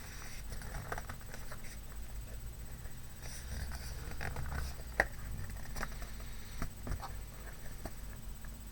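Folded card being handled and laid against a box on a tabletop: light rustling and scraping with scattered soft taps, and one sharper tap about five seconds in.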